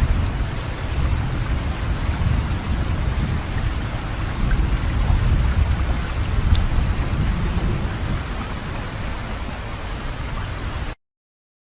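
Steady rain hiss with a low rumble swelling underneath. It cuts off abruptly shortly before the end, leaving silence.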